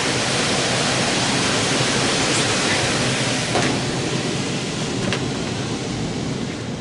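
Air handler blower with a new fan motor and squirrel cage, running correctly: a steady rush of moving air. From about four seconds in it becomes quieter and more muffled as the front access panel goes back on, with a couple of light knocks from the panel.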